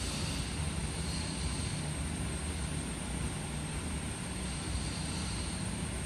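Faint scraping of a craft-knife blade on scratchboard, in two short spells near the start and near the end, over a steady low hum of room noise that is the loudest sound throughout.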